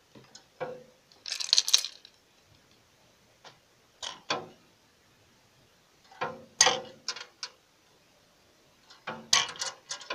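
Scattered light clicks and knocks in small clusters, with a short hissy rush about a second and a half in. These are handling sounds of a hard plastic minnow wobbler with treble hooks in a plastic tub of water.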